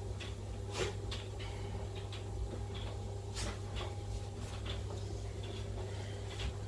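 Scattered light clicks and knocks of things being handled in a kitchen, the clearest about one second in and midway, over a steady low hum.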